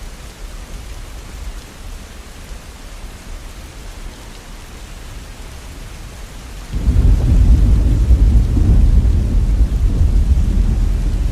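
Steady rainfall, then about two-thirds of the way through a loud, low rumble of thunder sets in suddenly and keeps rolling over the rain.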